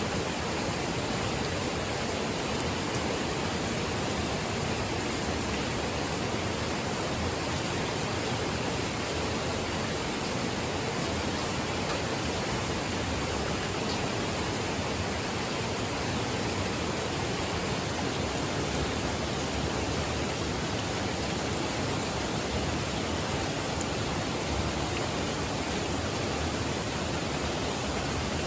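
Steady, even hiss of water, with no separate drops or splashes standing out.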